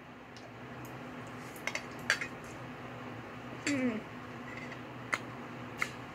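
A metal fork clinks against a bowl while eating, in scattered light clicks about seven times, over a low steady hum.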